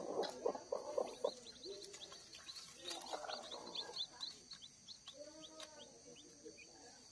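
Day-old kampung chicks peeping under a brooding hen: a quick run of short, high, falling chirps, about four a second, fading out about five seconds in, with the hen's low clucks near the start and in the middle.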